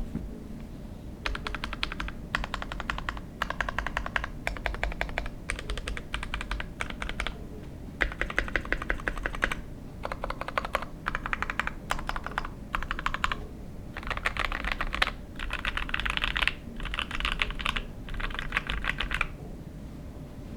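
Typing on a KBDfans Tofu 60% mechanical keyboard with lubed Gateron Ink Black V2 linear switches on a carbon fibre plate, with plate and case foam and Olivia-clone keycaps. Fast runs of keystrokes come in bursts of a second or two with short pauses between, starting about a second in and stopping shortly before the end.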